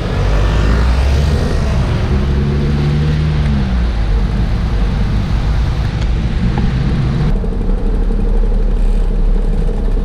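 Road traffic passing close by, heard over a heavy low wind rumble on the microphone of a moving bicycle. A passing vehicle's engine hum drops in pitch about three and a half seconds in. The hiss thins out suddenly about seven seconds in, leaving the low rumble.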